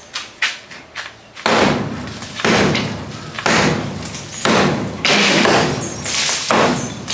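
Small sledgehammer striking a hollow concrete block wall, repeated heavy blows about once a second with a couple of lighter knocks at the start, as the wall is broken out around a wooden window frame.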